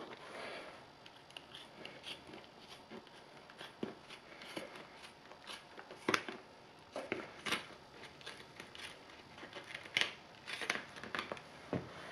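Scissors snipping through a sneaker's upper in irregular cuts, several louder snips standing out, with rustling of the material as it is handled about a second in.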